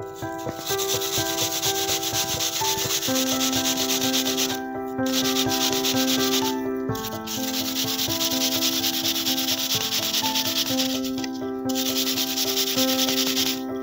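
Peeled apple being grated on a metal box grater: a fast run of rasping scraping strokes that stops briefly three times. Instrumental background music underneath.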